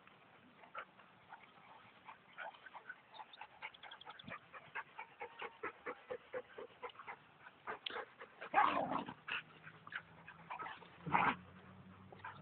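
Dogs playing together: a run of quick light ticks and scuffles, then two louder outbursts of dog noise about eight and a half and eleven seconds in.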